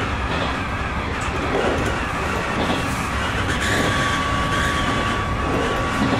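Electric train running along the track, heard from inside the front cab: a steady rumble and rush of wheels on rail. A steady high tone sets in about two seconds in and holds.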